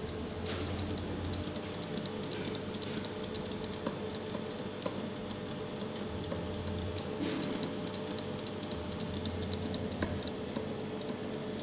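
Laser welder at work: a dense, fast crackle of fine ticks over a steady machine hum.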